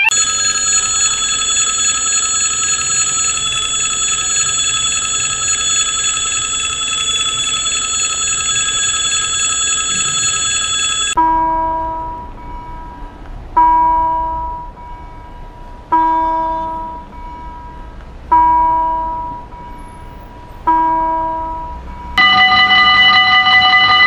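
Level-crossing warning signals in three styles, one after another: a steady continuous ringing for about eleven seconds, then five slow single chimes about two and a half seconds apart, each fading out, then near the end a steady continuous ringing again.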